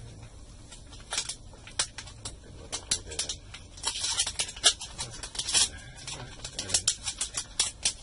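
Anti-static plastic bag crinkling in quick, irregular crackles as it is handled and folded around an old hard drive.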